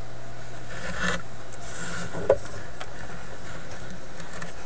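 Hands handling parts and brushing against wiring and the metal chassis, with light rustling and one sharp small click a little over two seconds in.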